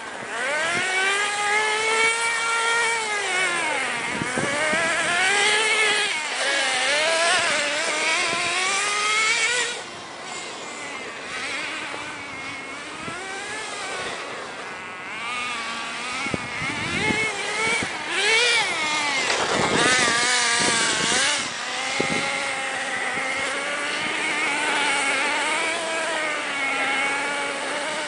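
Redcat Volcano S30 radio-controlled monster truck running, its engine note rising and falling again and again as it is throttled up and down.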